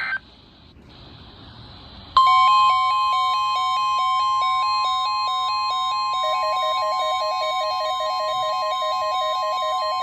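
NOAA Weather Radio alert tone: a single steady high tone starts about two seconds in and holds, with a stepping two-note electronic beeping over it that quickens about halfway through. It signals the start of a severe thunderstorm watch broadcast.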